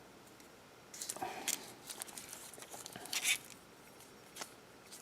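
Handling noise from a wristwatch being turned in the hand: a cluster of small clicks and rustles starting about a second in, and a single click near the end.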